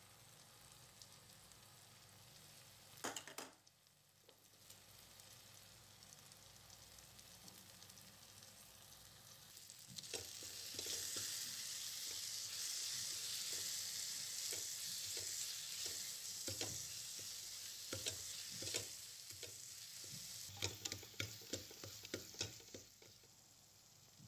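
Chopped onions and spices frying in oil in an aluminium pressure cooker pan. The sizzle grows louder about ten seconds in, after a short loud burst about three seconds in. A spatula scrapes and taps against the pot as it stirs, with many quick taps near the end.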